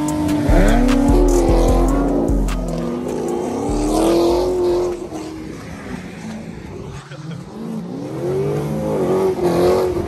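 A car engine revving hard again and again, its pitch climbing, holding and falling, under background music with a deep bass line.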